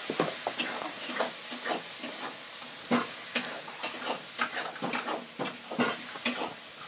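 Drawing compass tapping and scraping on a sheet of paper as its point and pencil mark points, many short irregular ticks over a steady hiss.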